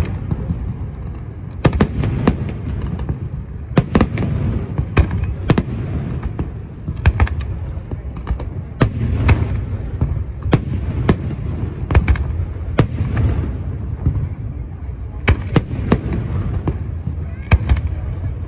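Aerial fireworks display: sharp bangs of shells bursting at uneven spacing, often several in quick succession, over a continuous low rumble of booms.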